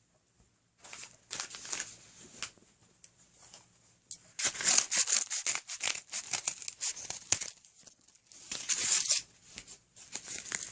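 Packaging being torn and crinkled by hand as a package is opened, in several bursts with short quiet gaps between.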